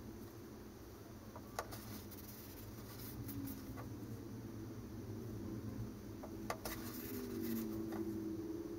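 Faint handling noises: a few light sharp clicks, the two clearest about five seconds apart, with soft rubbing as a model rocket's paper-wrapped cardboard tube is turned in the hand and thick super glue is worked under the wrap's edge, then wiped off with a paper towel near the end.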